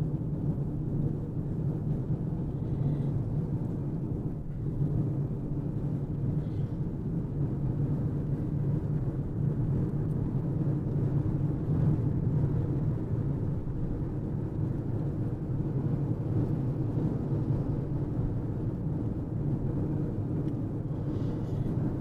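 Steady engine drone and tyre and road noise inside a car's cabin while it drives at speed on a highway.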